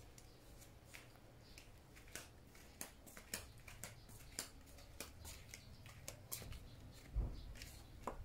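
Faint footsteps and handling noise on a tiled floor: scattered soft clicks and taps, with a low thud about seven seconds in.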